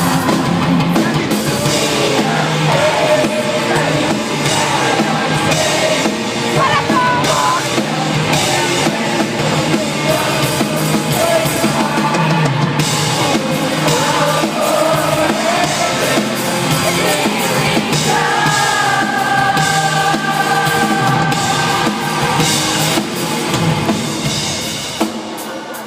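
Rock band playing live, with a drum kit and a singer. Over the last several seconds a long note is held, then the music dips briefly just before the end.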